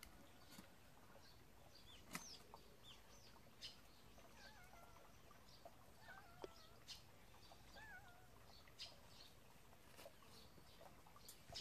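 Near silence, with a few faint, wavering high-pitched calls, mostly in the middle, and a few soft taps.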